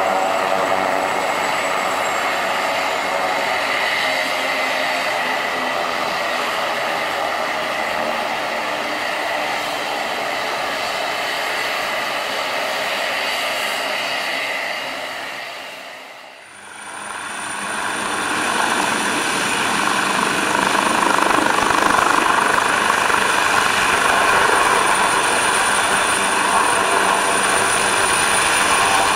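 AgustaWestland AW139 helicopter's twin turboshaft engines and rotor running steadily on the ground before lift-off, a high turbine whine over the rotor noise. About halfway through the sound fades out briefly and comes back louder, with a thin high whistle.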